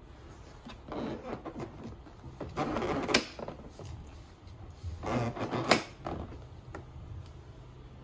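Plastic child car seat sliding and rubbing against the seat in two spells, each ending in a sharp click, about three seconds and five and a half seconds in: its ISOFIX connectors latching onto the anchors.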